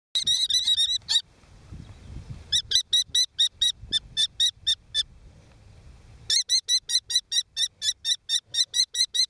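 Common kestrel nestlings calling a high-pitched, rapid kee-kee-kee series. The calls come in three runs at about four to five calls a second, with short pauses between the runs.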